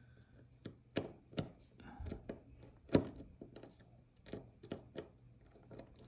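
Light, irregular clicks and taps of a small T8 Torx driver turning a body screw into a Demko AD20 folding knife's handle scale, the loudest tap about three seconds in.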